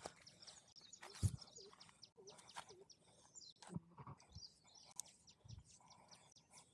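Faint handling noises of a plastic bag and a nylon cast net, with small birds chirping in the background and a run of quick high chirps near the end.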